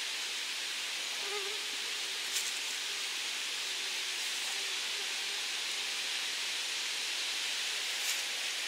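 Steady high hiss of summer forest ambience, with two brief sharp clicks a few seconds apart as mushrooms are handled.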